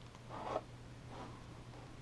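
Two short rustling handling noises as hands pick up small parts and a screwdriver over the workbench, the first and louder about half a second in. A faint steady low hum runs underneath.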